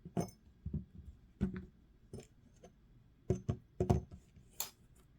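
Irregular light clicks and taps of small metal folding-knife parts (liners, pivot hardware, spring) being handled and set down during disassembly, about eight in all, with a quick cluster a little past halfway.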